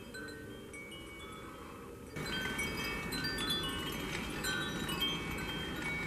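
Wind chimes ringing irregularly in strong gusty wind, over a steady rush of wind. About two seconds in it gets louder, with denser chiming and a stronger rush.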